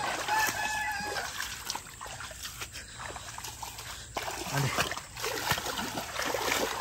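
A rooster crows once, about a second long, just after the start. Bare feet splash and slosh through shallow, muddy floodwater, louder in the second half.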